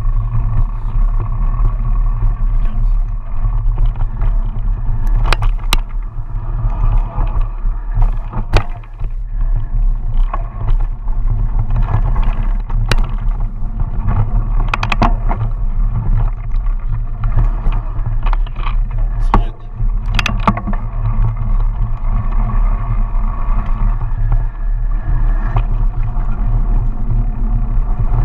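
Mountain bike riding down a dirt singletrack, heard through a handlebar-mounted camera: a steady low rumble of wind and vibration, with scattered sharp knocks and rattles as the bike hits bumps in the trail.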